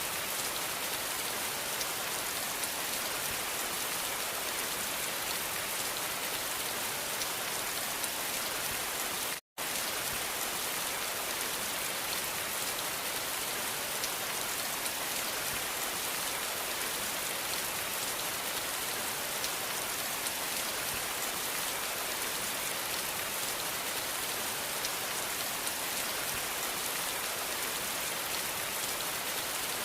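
Steady rain, an even hiss of many drops falling on a surface. It cuts out completely for an instant about nine seconds in, then carries on unchanged.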